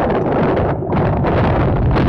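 Wind buffeting the microphone: a loud, uneven rumbling noise that eases briefly just under a second in.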